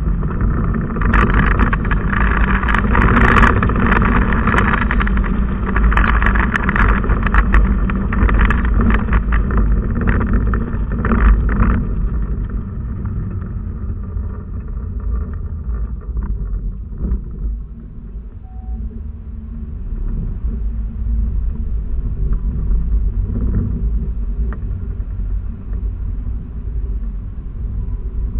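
Car engine and road noise heard from inside the cabin while driving slowly through a neighbourhood. The noise is louder for about the first twelve seconds, through a turn, then eases as the car slows.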